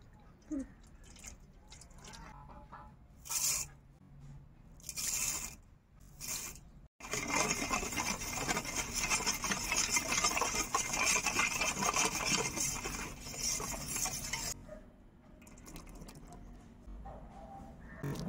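A steel spoon briskly stirring milk in a stainless-steel bowl, a rapid scraping and sloshing that starts suddenly about seven seconds in and stops about seven seconds later. A few short, brief noises come before it.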